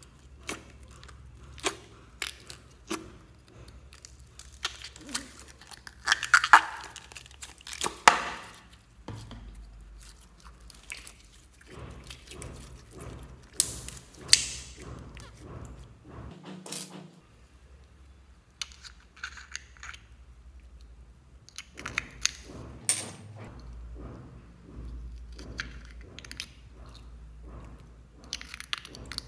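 Thin clear plastic slime tube squeezed and handled, crackling and clicking irregularly, with a few louder crinkling bursts.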